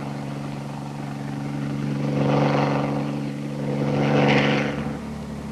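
Helicopter engine and rotor running in a low hover and passing overhead: a steady droning note with a rushing rotor sound that swells about two seconds in and again near the end, then eases off.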